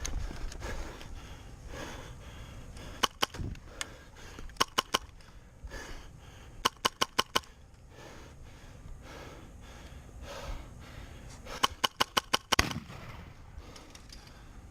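Airsoft guns firing in short rapid bursts, four volleys of two to seven shots each, the longest strings around the middle and near the end.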